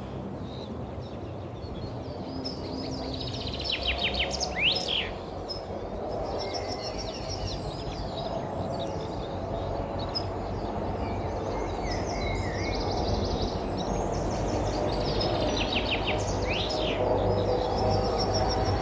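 A songbird singing the same short phrase twice, a rapid run of high chirps ending in a quick flourish: once about four seconds in and again near the end. Fainter chirps fall between, over a steady low background rush.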